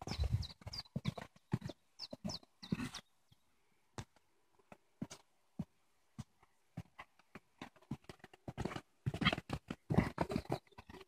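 Hoofbeats of a cantering horse on grass turf, a run of short strikes that thin out and grow faint in the middle and come loudest near the end as the horse passes close by.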